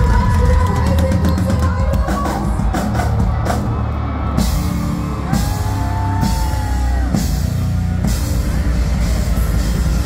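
Live rock band playing at full volume: drum kit, electric guitars and singing, with cymbals crashing about once a second from around four seconds in.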